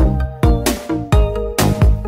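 Background electronic dance music with a steady, punchy beat.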